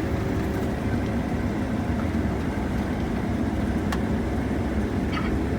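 Heavy farm harvesting machinery running with a steady engine drone.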